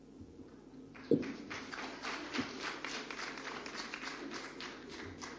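A thump about a second in, then scattered clapping from a small audience, a few hands clapping quickly and unevenly for several seconds.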